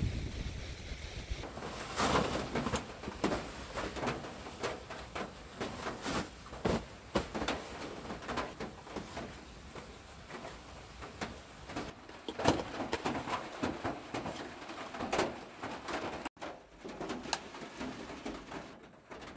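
Irregular knocks, taps and rustling of gear and cloth being handled, with one loud sharp knock about twelve seconds in.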